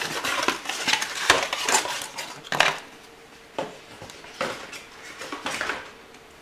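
Plastic blister packaging and cardboard being handled while accessories are pulled out: crackles, rustles and sharp clicks, dense for the first three seconds, then scattered clicks and rustles.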